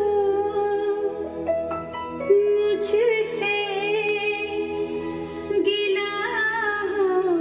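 Recorded music with a voice singing long held, wavering notes, played back through Altec 604-8G studio monitor speakers driven by a single-ended triode tube integrated amplifier.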